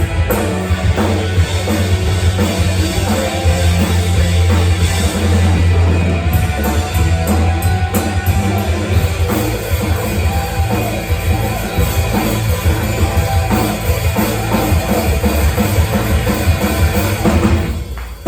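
A band playing rock music at a sound check: drum kit and heavy bass, loud throughout, stopping abruptly near the end.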